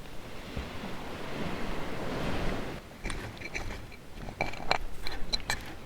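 Surf breaking on the beach: one wave swells and washes in over the first three seconds, then drops away, followed by a scatter of sharp light clicks and taps.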